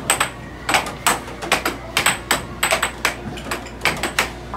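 Air hockey puck and mallets clacking in a fast rally: sharp plastic clicks, about three a second, unevenly spaced.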